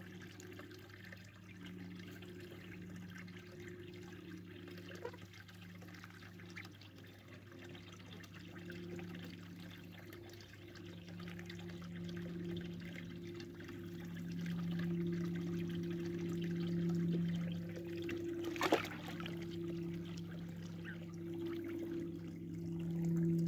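Water from a garden hose trickling and pouring into a shallow plastic tub, over a steady low hum that swells in places and grows louder in the second half. A single sharp knock sounds about 19 seconds in.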